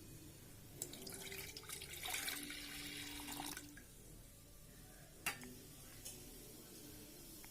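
Water running into an electric kettle for about three seconds, then a single sharp click a couple of seconds later.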